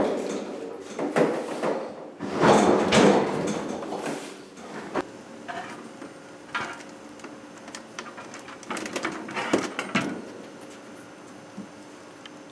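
A series of knocks, bumps and scraping handling noises, loudest in the first three seconds, then sparser smaller knocks over a faint steady hum.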